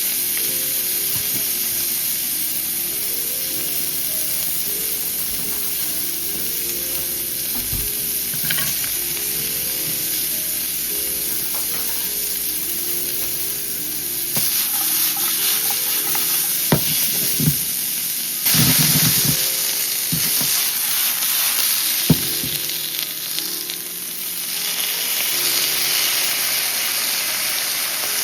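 Food sizzling steadily in a hot frying pan, with a few sharp utensil knocks in the second half.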